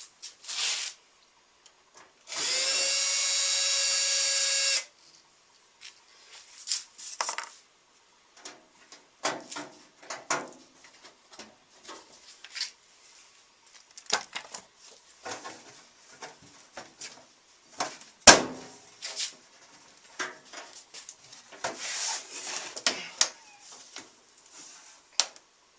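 A power drill runs with a steady high whine for about two and a half seconds, a few seconds in, then stops. It is followed by scattered clicks, taps and rattles of parts being handled.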